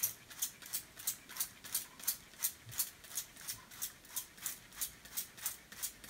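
Hand-pump trigger spray bottle squeezed over and over, about three short hisses of water mist a second, showering a pet cockatoo.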